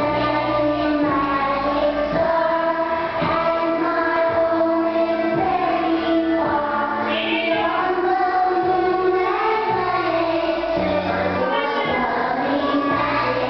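A recorded song playing over a loudspeaker: high voices singing a melody together over a bass line that moves note by note.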